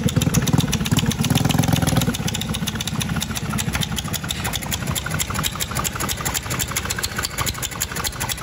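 Tecumseh HS40 single-cylinder engine on a 1969 Powell Challenger mini bike running: louder for about the first two seconds, then settling into a steady idle.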